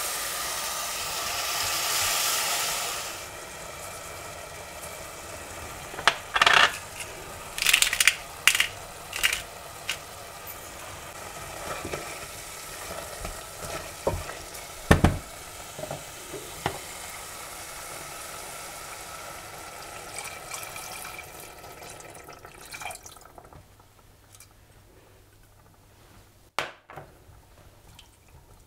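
Meat cubes and tomato purée sizzling in a stainless steel pot, loudest in the first few seconds and then settling to a lower sizzle. A silicone spatula stirs the pot, with a run of sharp clicks and scrapes against the pot and a dull knock about halfway; the sizzle fades near the end.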